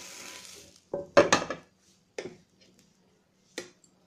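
Oil sizzling in a frying pan, stopping under a second in, then a steel spatula clattering against the cookware as a fried kebab is lifted out: a few separate knocks and scrapes, the loudest just over a second in.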